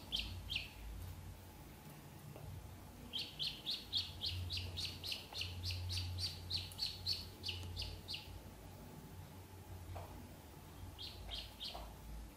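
Ducklings peeping: a quick run of short, high peeps, about four a second, from about three seconds in to about eight seconds in, with a few more peeps near the start and near the end.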